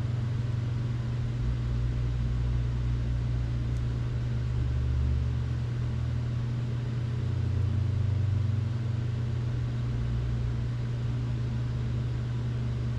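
Steady low mechanical drone from a running machine, swelling and easing slightly a few times.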